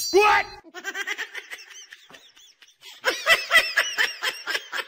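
High-pitched giggling laughter, a quick run of short bursts several a second, loudest about three seconds in.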